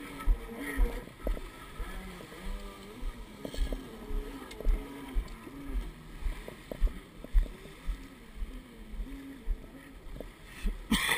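Jet ski engine running at low revs, its note stepping up and down as the throttle changes, under repeated deep thumps of wind buffeting the microphone.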